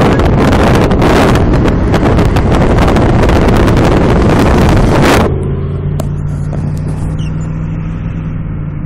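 Wind buffeting a phone's microphone held out the window of a moving pickup truck, loud and crackling over the engine noise, which cuts off suddenly about five seconds in. After that comes the steady hum of the truck's engine as heard from inside the cab.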